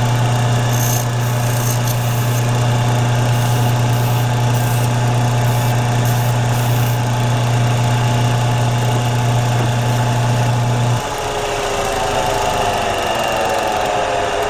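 Electric grinding machine running with a steady hum while fine-grinding the edges of a sterling silver buckle; about eleven seconds in it is switched off and its pitch falls as the motor winds down.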